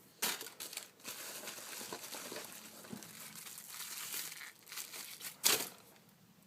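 Plastic packaging crinkling and rustling as it is handled and opened, with a sharp, louder crackle about five and a half seconds in.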